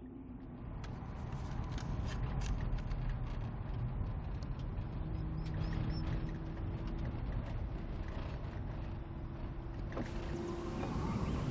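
Car engine running at a steady low rumble, with scattered sharp clicks and rattles.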